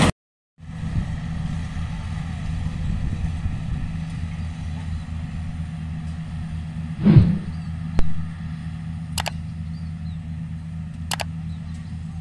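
Yanmar AW70 combine harvester's diesel engine running at a steady low drone. The drone cuts in after a half-second gap of silence at the start. A brief louder sound comes about halfway through, followed by a few sharp clicks.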